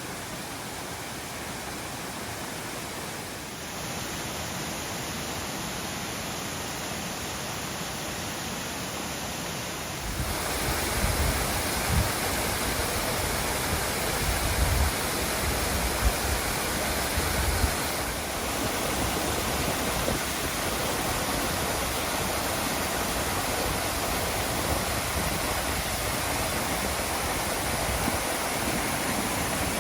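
Water rushing steadily down the cascades of a mountain stream, an even rush. It jumps louder about ten seconds in, and from then on low rumbling comes and goes underneath.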